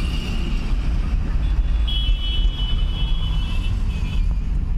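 Road noise heard inside a moving car: a steady low rumble of engine and tyres. A thin high-pitched tone sounds for about two seconds midway through.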